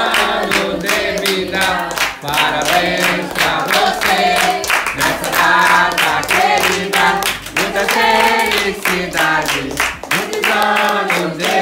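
A family group singing a birthday song together, with steady rhythmic hand clapping keeping time.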